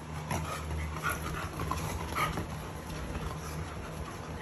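Two dogs, a dachshund puppy and a beagle, play-fighting, with several short high whining yips in the first couple of seconds.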